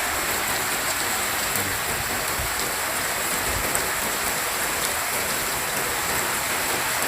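Heavy rain pouring down steadily: a dense, even hiss with scattered ticks of individual drops.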